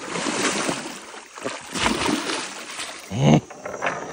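Large hooked river catfish thrashing at the water's surface beside a canoe: splashing water that starts suddenly and comes in several surges.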